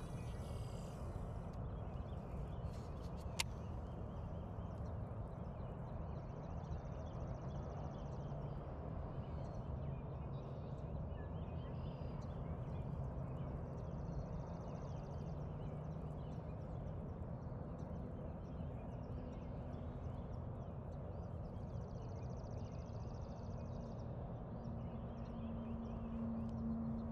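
Outdoor ambience: a steady low rumble, with a high dry trill repeated three times, each about two seconds long and about eight seconds apart.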